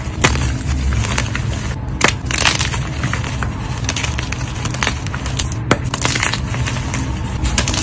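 Blocks of dyed gym chalk being crushed: an irregular run of crisp crunches and crumbling.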